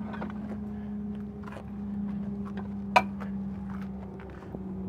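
Outboard lower unit (gearcase) being handled and set into a stand: a few light knocks and one sharp clank about three seconds in, over a steady low hum.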